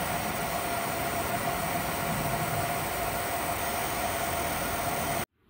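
ComMarker Omni 1 UV galvo laser engraver running while it marks a glass on its rotary attachment: a steady machine hiss and hum with one constant mid-pitched tone, cutting off suddenly about five seconds in.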